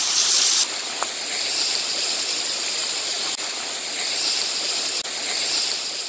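Small waterfall splashing onto rocks, a steady rushing noise, close to the falling water. The level drops a step a little over half a second in.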